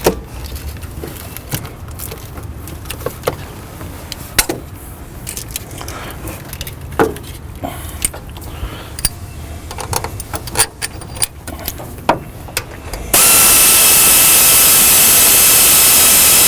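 Metal tools clicking and clinking irregularly against the A/C compressor's hose manifold fittings as it is bolted back on, then near the end a loud, steady hissing whir from a power tool that starts and cuts off abruptly after about three seconds.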